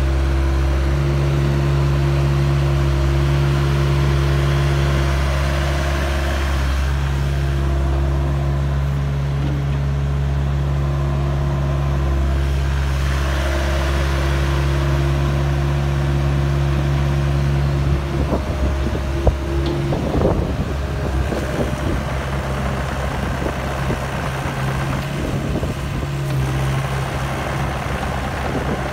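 Doosan DX85R-3 8.6-ton excavator's diesel engine running with a steady hum, with short changes as the hydraulics move the boom and bucket. About two-thirds of the way through the steady hum gives way to a rougher, uneven rumble with a sharp knock.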